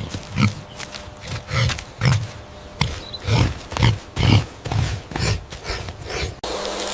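An animal making short low grunts, about two a second. Near the end the sound cuts abruptly to a steady buzzing hum.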